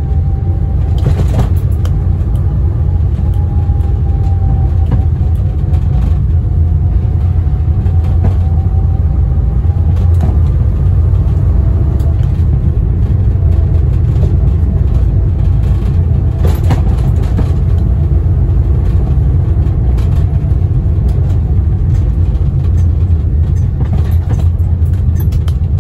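Inside the cabin of a 1975 Austin Allegro under way: the 1098cc A-series four-cylinder engine gives a steady low drone, with a faint whine from the A-series four-speed gearbox that drifts in pitch and steps lower about ten seconds in. There are a couple of brief knocks, about a second in and again about sixteen seconds in.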